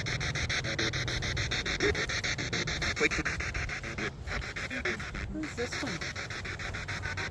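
Ghost-hunting spirit box sweeping through radio stations: a hiss of static chopped into rapid, even pulses, with brief broken scraps of broadcast sound. It drops out briefly twice about four and five seconds in.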